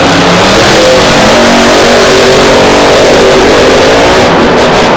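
Monster truck's supercharged V8 engine revving hard under full throttle, its pitch rising and falling. Near the end come sharp pops from pyrotechnics.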